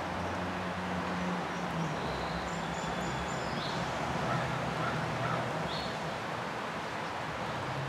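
Outdoor background: a steady low hum and hiss, with a few short, high bird chirps between about two and six seconds in.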